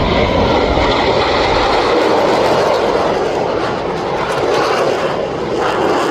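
Loud, steady jet noise from Blue Angels Boeing F/A-18 Super Hornets flying overhead, easing slightly a little past the middle.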